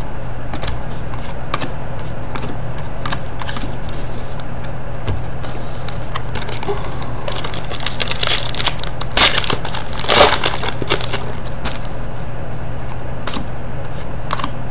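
Trading cards being handled and flipped through by hand, with crackly crinkling of card and foil wrapper. A flurry of louder crinkles comes about eight to eleven seconds in.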